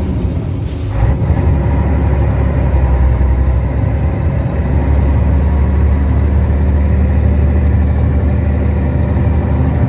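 Vehicle engine idling steadily with a low hum, as traffic waits at a standstill. A brief click under a second in.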